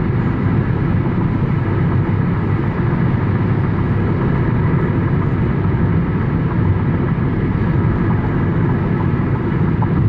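Steady road and engine noise heard from inside a car cruising at highway speed, an even low rumble of tyres and engine.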